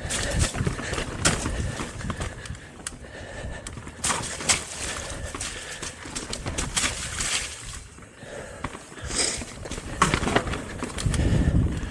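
Bicycle rolling over a rough forest trail: tyres on dirt and roots, with the frame and drivetrain rattling in quick irregular clicks and knocks. A louder low rumble comes in near the end.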